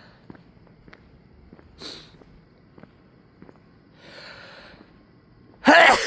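A man sneezing while walking, with faint footsteps throughout: a short sharp sniff about two seconds in, a longer indrawn breath around four seconds, then a loud voiced sneeze bursting out near the end.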